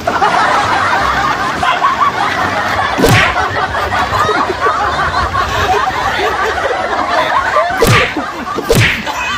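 Several people laughing and snickering without a break, with three sharp knocks: one about three seconds in and two close together near the end.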